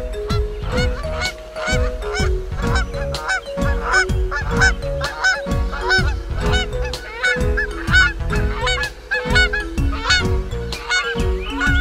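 Cartoon background music: a stepped melody over a steady beat, with short honk-like squawks repeating in time with the rhythm.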